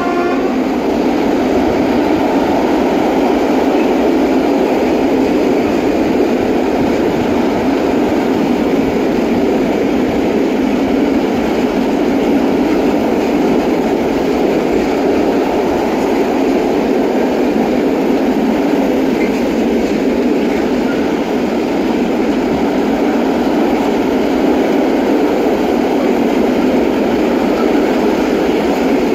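Freight train of open wagons rolling past close by: a steady, even noise of wheels on rails that does not change throughout. The electric locomotive's horn cuts off right at the start.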